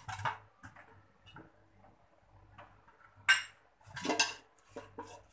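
Steel cooking pot being greased with vegetable ghee, a hand rubbing and scraping around its inside. There is a sharp metallic clink about three seconds in and a longer scrape about a second later.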